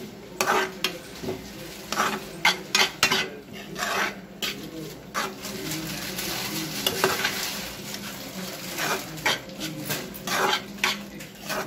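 Steel spoon scraping and knocking against a frying pan in irregular strokes as an onion and capsicum filling is stirred, over a steady sizzle of frying.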